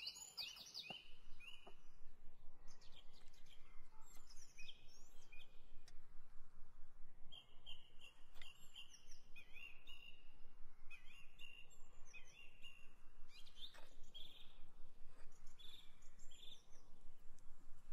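Small songbirds chirping and singing in short repeated phrases, with a few light clicks of a knife and fork against an enamel bowl.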